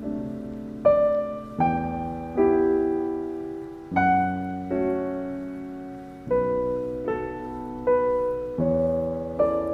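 Gentle background piano music: single notes and chords struck about once a second and left to ring and fade.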